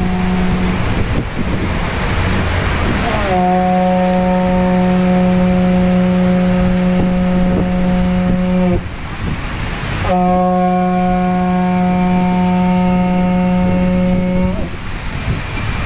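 Conch shell trumpet blown in two long, steady blasts of about five seconds each, the first starting about three seconds in. Each note bends up slightly as it starts and drops off at the end.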